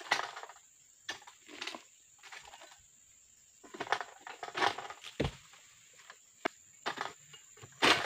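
Irregular bursts of rustling and scraping as an egrek, the long-pole sickle used for harvesting oil palm, is worked against the palm's fronds. Two sharp knocks come about five and six and a half seconds in.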